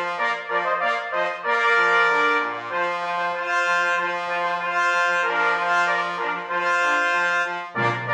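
Brass fanfare music: held brass chords that change every second or so, with a lower, fuller passage coming in just before the end.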